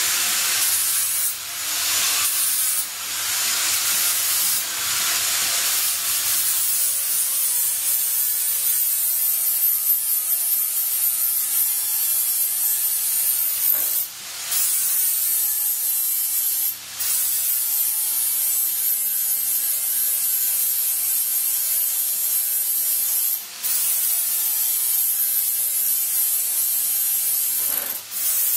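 High-speed handheld sanding or grinding tool working the edge of a sheet-metal plate: a steady, hissing rasp with a faint high whine. The tool stops briefly a few times and the whine climbs back up as it restarts.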